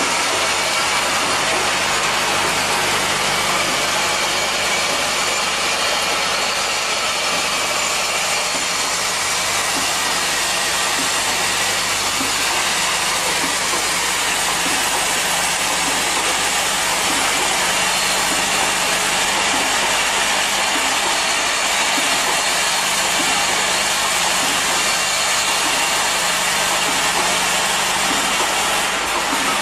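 Automatic clothes peg assembly machine running: its vibratory bowl feeders hum, under a steady, dense, hiss-like machine noise.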